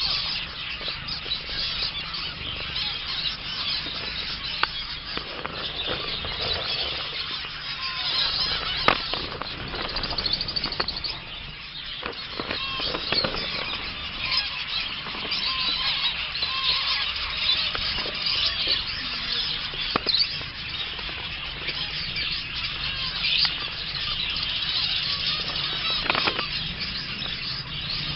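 A flock of zebra finches calling together: a dense, continuous chatter of short high calls, with a few sharp clicks, one about nine seconds in and another about twenty seconds in.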